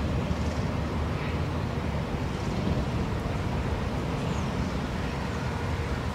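Steady low rumble of outdoor background noise with a faint hiss above it, and a couple of faint high chirps about four seconds in.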